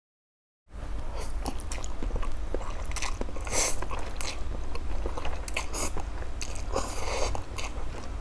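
A person eating spicy dry instant noodles, slurping them up from chopsticks and chewing with wet mouth sounds, starting just under a second in.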